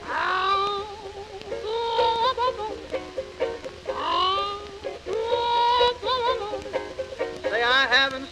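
Music: a 1920s popular song in a wordless passage, with ukulele and a melody line that swoops up into each phrase.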